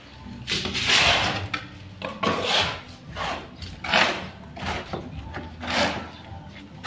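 Shovel blade scraping and turning wet cement mix on a concrete slab, a rough scrape every second or so.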